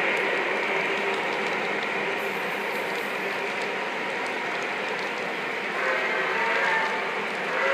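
O-gauge model train running past, with the steady rolling rumble and clatter of the locomotives and autorack cars over three-rail track. About six seconds in, a horn or whistle chord from a locomotive's onboard sound system blows for over a second.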